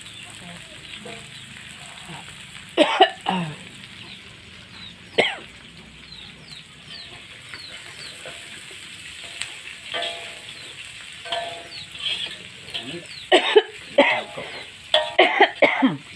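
Food sizzling in a wok on a gas stove, stirred with a metal spatula that scrapes against the wok. The scrapes are loudest about three seconds in and in a cluster over the last three seconds.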